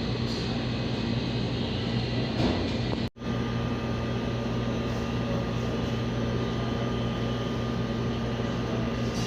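Steady hum of ventilation machinery, a constant low drone with a faint higher whine over it. The sound cuts out for a split second about three seconds in.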